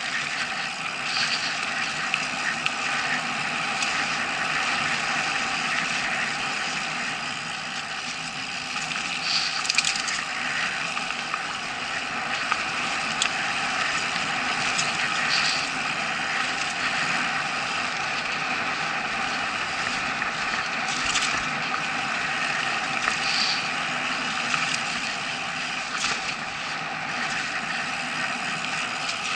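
Mountain bike rolling fast down a dirt forest trail: steady tyre noise and rattle of the bike, picked up through an action camera's case, with a few sharp knocks from bumps in the trail.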